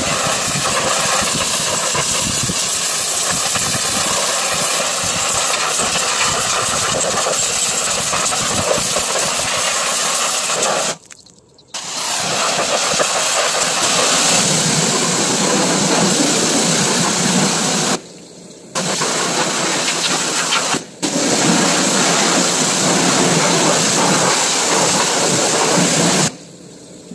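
Pressure washer running, its jet spraying water onto a car's underside and engine compartment: a steady loud hiss that cuts out briefly a few times.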